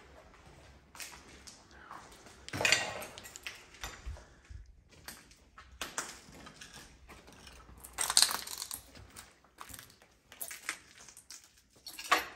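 Footsteps on a debris-strewn concrete floor: a string of irregular crunches, the loudest about two and a half, eight and twelve seconds in.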